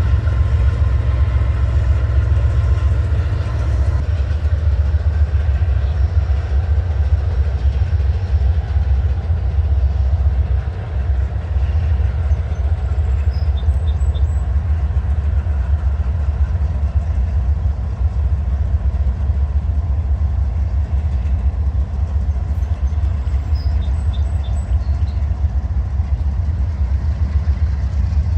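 Freight train rolling past with a steady, loud low rumble of cars on the rails.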